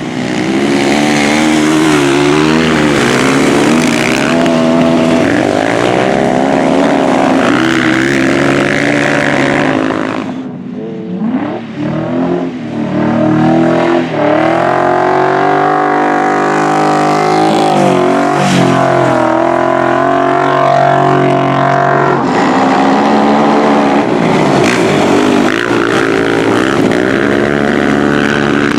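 Racing engines running hard at high revs on a dirt track, their pitch rising and falling as the vehicles go by; about ten seconds in the sound drops briefly, then climbs again as they accelerate.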